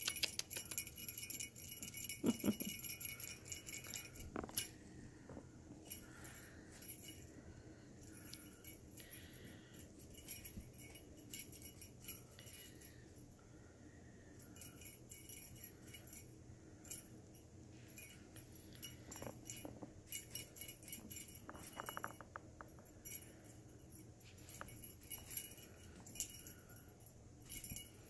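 Faint jingling and rattling from a feather wand cat toy as it is waved and batted by a kitten, coming in several short bursts.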